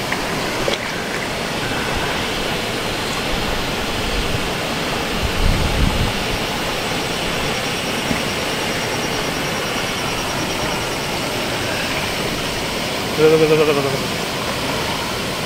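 Steady rush of river water spilling over a low weir into a pool, with a brief low rumble about five seconds in. A person's voice calls out briefly near the end.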